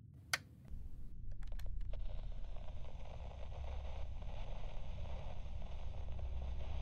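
Opening sound effects of an audio drama: a sharp click, then a few quick clicks, then a low rumble and a steady rushing hiss that come in about a second in and carry on.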